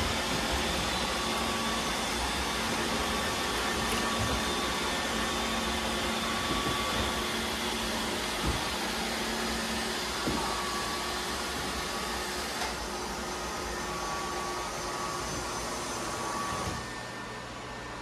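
Several robot vacuums running at once on a hardwood floor: a steady whir of motors and brushes with faint whining tones. The overall sound drops a little near the end.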